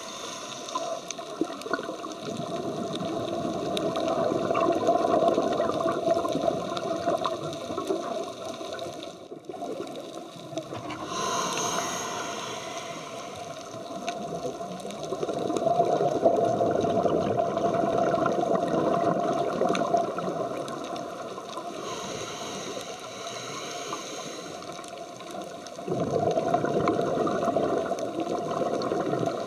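Scuba regulator breathing heard underwater: long bubbling exhalations lasting several seconds each, with shorter, hissier inhalations between them.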